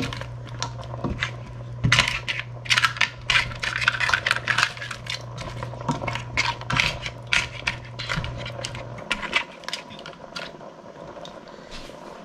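Metal tongs stirring crab pieces and chunks of vegetables in a stainless steel pot of coconut milk: rapid, irregular clicks and clatter of tongs and crab shells against the pot, thinning out near the end. A low steady hum runs underneath and stops about nine seconds in.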